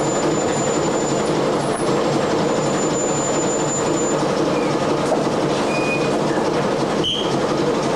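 Steady drone of a fishing trawler's engine and deck machinery, with a few short squeaks in the second half.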